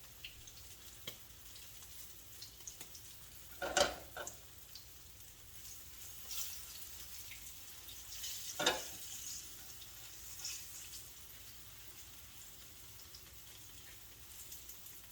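Breadfruit and saltfish fritters frying in oil, a faint steady sizzle with small crackles. There are two louder, brief bursts about four and nine seconds in.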